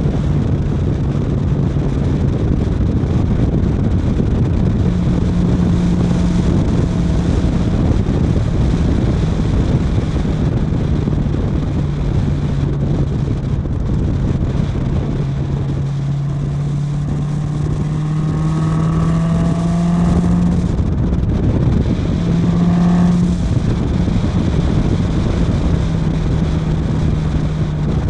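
Car engine running under way over a steady rush of wind and road noise. About halfway through the engine note climbs slowly for several seconds, drops off suddenly, comes up again briefly a couple of seconds later, then settles back to a steady drone.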